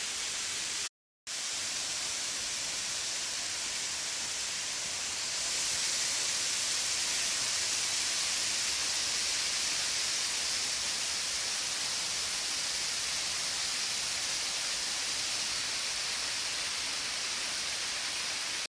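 Waterfall: falling water rushing steadily. The sound cuts out for a moment about a second in and is a little louder from about five seconds in.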